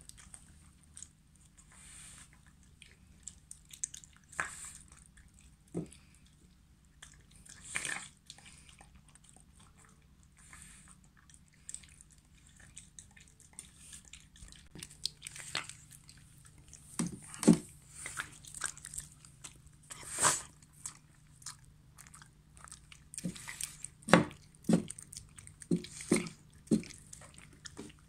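Shiba Inu eating soft meat chunks from a ceramic bowl: irregular wet chewing and smacking with short clicks, coming thicker and louder in the second half.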